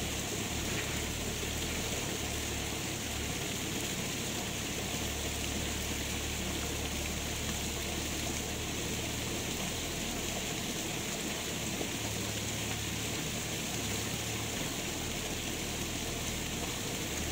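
Steady rushing, water-like noise with no distinct knocks or calls in it.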